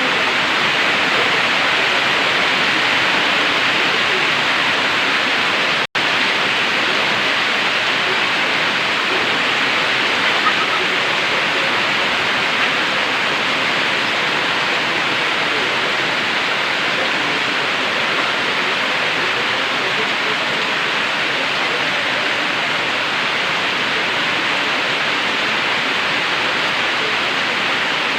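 Heavy tropical-storm rain pouring steadily in a dense, even hiss, with a split-second dropout about six seconds in.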